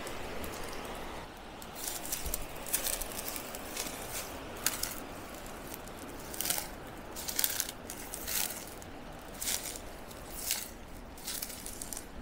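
Irregular crunching footsteps, a step roughly every half second to a second.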